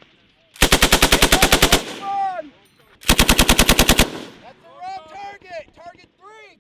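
M240 belt-fed 7.62 mm machine gun firing two short bursts of about a second each, roughly ten rounds a second, the second burst about three seconds in.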